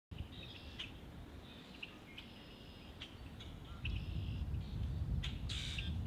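Common grackle calling: a string of short, high chirps and clicks, then a louder, harsh note about five and a half seconds in. A low rumble rises underneath from about four seconds in.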